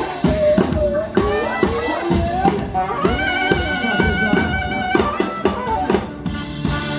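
Live band playing upbeat music: drum kit beating under melody instruments, with one long held note from about three to five seconds in.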